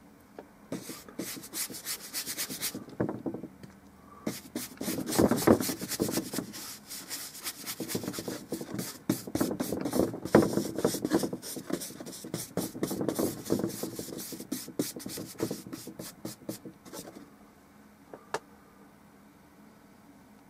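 Stiff bristle brush scrubbing oil paint back and forth across a small painting panel in quick, rasping strokes, laying a brown tone over the whole surface. The strokes stop shortly before the end, followed by a single click.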